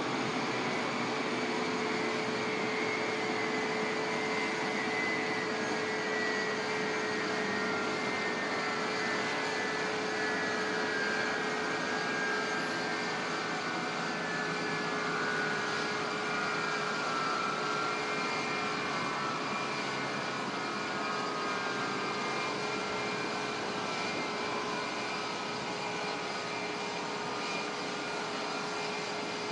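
Jet engines of Air Force One, a four-engine Boeing VC-25A (747), running at idle on the ground: a steady jet hiss with a constant hum and a faint whine that slowly falls in pitch.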